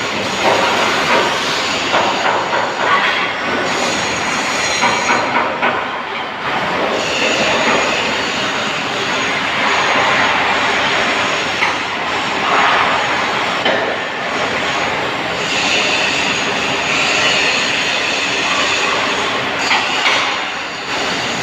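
MIG welder arc crackling and hissing steadily as it lays a weld on sheet panel, with a few brief dips in level.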